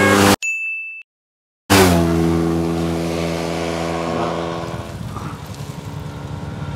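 Motorcycle engine running on the road. About half a second in, the sound cuts to a short high steady tone and then a second of dead silence. The engine comes back loud, dips slightly in pitch, and eases off near the end.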